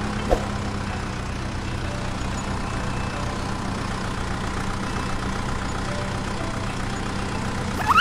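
Steady, low engine idling hum with a brief click about a third of a second in. A rising whistle starts right at the end.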